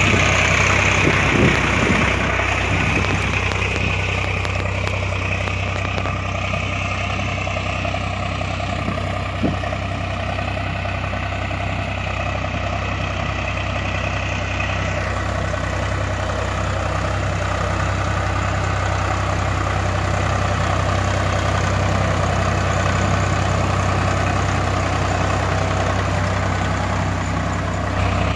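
Diesel tractor engine running steadily at a low idle, with a regular low throb.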